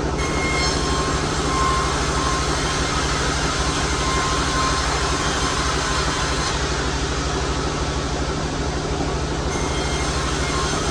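Sawmill machinery running steadily: an even, low machine hum with a higher whine over it.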